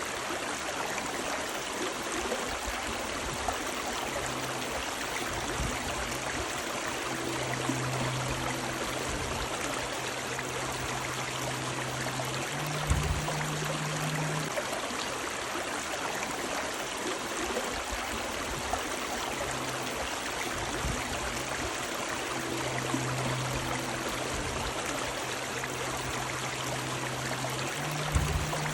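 Running river water: a steady rush and babble of flowing water. A low hum comes and goes underneath, with a couple of soft thumps.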